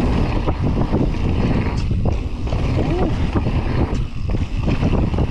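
Mountain bike riding fast over a dirt jump track: wind buffeting the microphone and tyres rolling on packed dirt, with frequent clicks and rattles from the bike.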